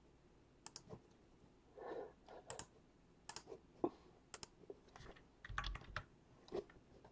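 Faint, scattered keystrokes on a computer keyboard at an irregular pace, with a soft rustle about two seconds in and a dull thump past the middle.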